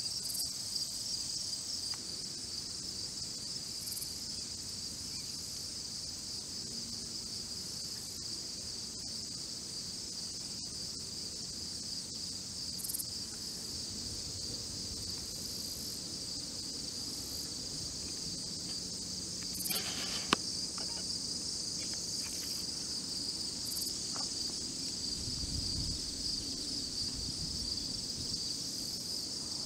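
Steady high-pitched chorus of crickets and other insects, with one sharp click about two-thirds of the way through and a low rumble near the end.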